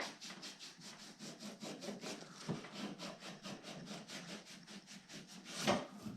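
Snowmobile handlebar being scrubbed by hand with an abrasive, rapid back-and-forth strokes about four to five a second, taking sticky residue and rust off the bar. A louder stroke comes near the end.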